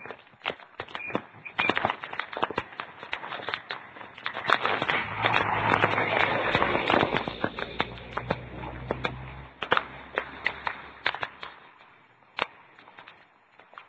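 Typhoon wind and rain on a cellphone microphone: irregular crackling and tapping throughout, with a louder rushing gust and low rumble swelling from about five seconds in and dying away by about ten.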